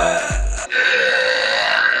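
A burp over music with a steady beat; the music stops about half a second in and a long, drawn-out burp follows.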